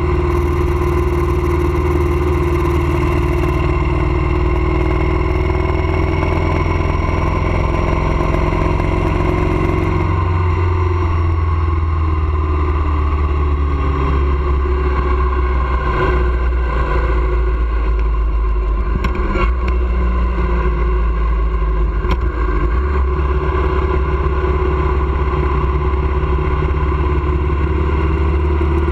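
Motorcycle engine running at road speed, its pitch drifting slowly up and down, under heavy wind rumble on the microphone.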